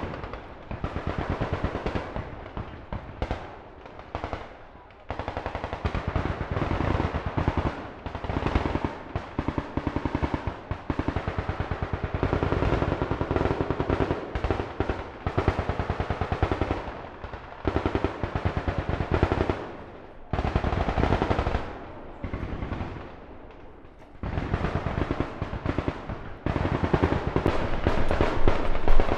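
Background music with a fast, rattling pulse over steady low tones, dropping away briefly a few times.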